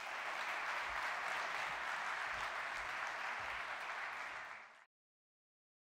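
Audience applauding steadily at the end of a talk; the applause cuts off suddenly a little before five seconds in.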